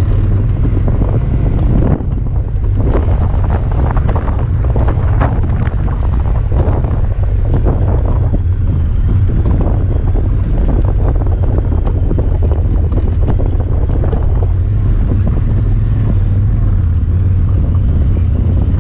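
Honda Talon 1000R side-by-side driving, its parallel-twin engine running with a steady low rumble, wind buffeting the microphone, and scattered knocks and rattles over rough ground.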